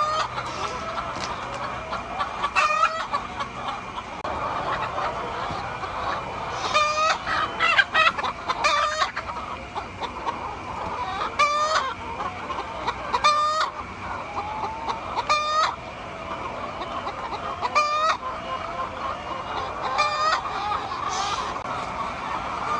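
A flock of chickens clucking, with short wavering squawks every couple of seconds over a steady chorus of the flock.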